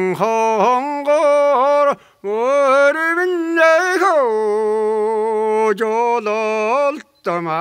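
An elderly man sings a Mongolian folk song unaccompanied, in long held notes with pitch slides. He breaks off for breath about two seconds in and again near the end.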